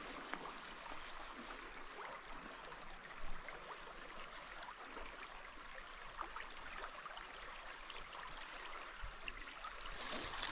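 Creek water flowing steadily, a soft, even rush of moving water with faint scattered ticks and a brief knock about three seconds in.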